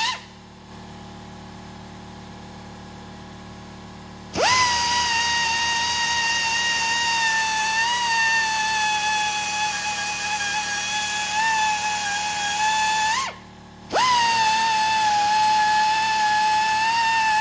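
Central Pneumatic 3/8-inch air belt sander grinding down a weld bead on a steel rifle receiver, running with a steady high whine. It cuts off just after the start, spins back up with a rising whine about four seconds in, stops briefly near the thirteen-second mark and spins up again.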